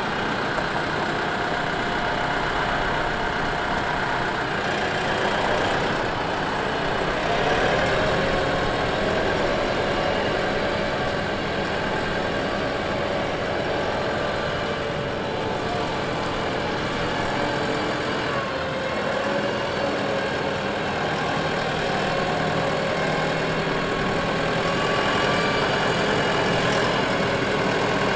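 RK 74 tractor's diesel engine running steadily as the tractor drives across pavement, its pitch shifting slightly about a quarter of the way in.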